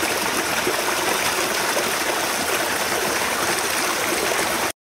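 Steady running water of a creek, cutting off abruptly near the end.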